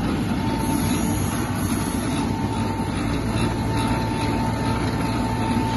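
Electric dough sheeter running steadily as its rollers press a folded sheet of dough, a constant motor hum with a faint high whine.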